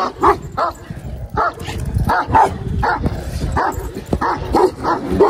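Large shepherd dogs in their pens barking repeatedly, a rapid run of barks at about three a second.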